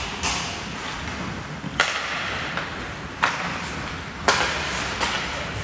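Ice hockey play in an indoor rink: four sharp clacks of sticks, puck and skates on the ice, each trailing off in a hissing echo, over a steady rink rumble.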